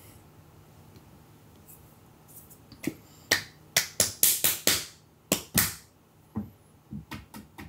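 A quick, irregular run of about a dozen sharp clicks or snaps, starting about three seconds in.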